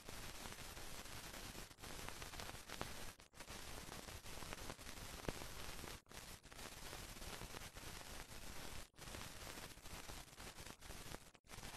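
Steady static hiss with a few faint crackles, cut by short dropouts every two to three seconds.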